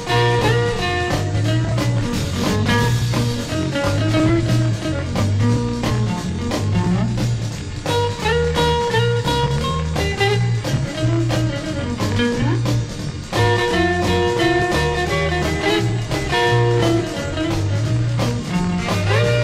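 Early-1960s instrumental rock and roll record: a guitar lead over a repeating bass riff and drums.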